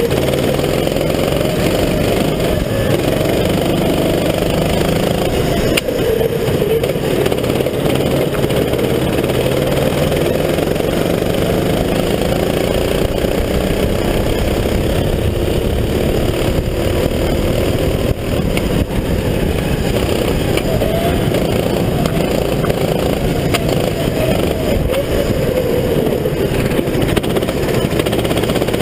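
Onboard sound of a Sodi RT8 rental go-kart's engine at racing speed, its pitch rising and falling repeatedly as the throttle is opened and lifted through the corners, over a steady rush of wind and tyre noise.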